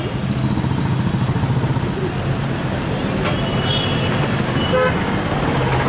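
Steady street traffic noise with a low engine hum, and a couple of short vehicle horn toots a little past the middle.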